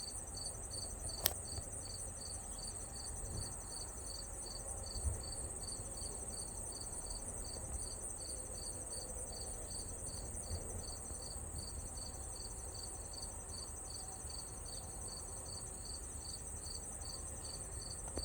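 Insects calling: a steady high-pitched trill, with a second insect's chirp repeating evenly about two to three times a second. A single sharp click about a second in.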